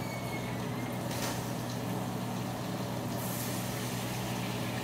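Tortillas and fish frying in a pan of oil and butter, a faint sizzle over a steady low mechanical hum, with a brief louder hiss about three seconds in.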